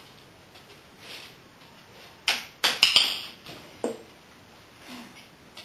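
Dog-training clicker: a quick cluster of sharp clicks about two to three seconds in and one more near four seconds. It is the marker that tells the dog it did the right thing at the box.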